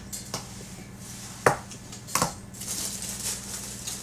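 Kitchen handling noises: two sharp knocks of a utensil set down on the counter, about a second and a half and two seconds in. Then a plastic bag of apples crinkles as it is picked up.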